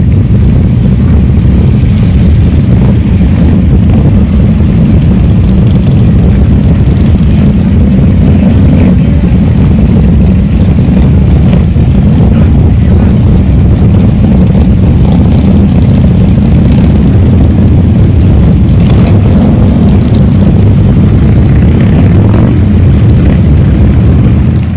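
A pack of motorcycle engines running together: a loud, steady, deep exhaust rumble.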